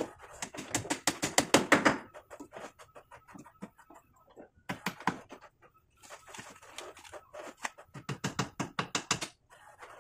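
Claw hammer driving nails into a wooden frame: runs of quick, sharp strikes. They are loudest in the first two seconds, followed by a pause, with more strikes in the second half.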